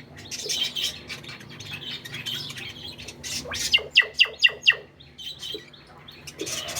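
Small pet parrots chattering and chirping, with a quick run of about six sharp, falling chirps around the middle, which are the loudest sounds.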